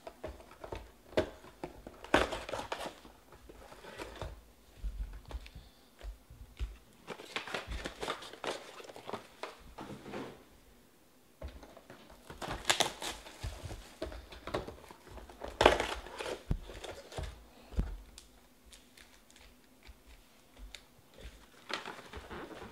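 Sealed trading-card hobby boxes and wrapped card packs being handled and stacked on a table: wrappers rustling, cardboard sliding and knocking, in irregular bursts with sharp clicks between.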